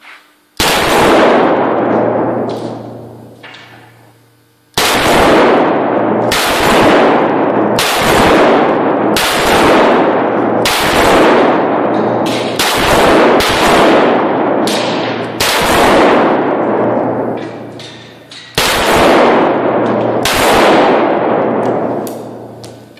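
AKS-74U carbine in 5.45×39 firing: one shot, a pause of about four seconds, then a long string of shots roughly one every three-quarters of a second. Each shot rings on in a long echo in the indoor range.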